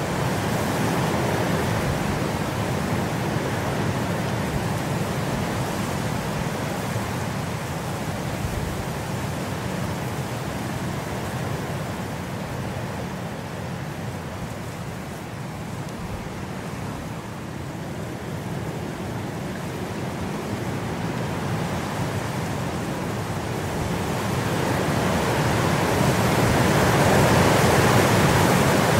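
Steady rushing hiss of rain ambience, swelling louder over the last few seconds.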